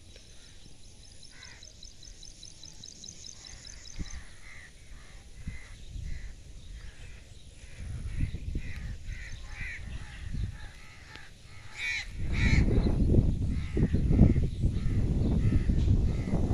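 Crows cawing over and over, about one call every half second, with a faint high trill in the first few seconds. About three-quarters of the way through, a loud low rumble takes over.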